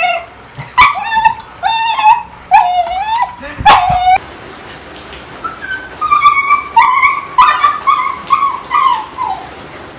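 Beagle whining and yipping in a run of short, loud, high-pitched calls, each bending up and down in pitch. There are about five in the first few seconds, then after a brief gap another string of slightly higher whines that slide down at the end.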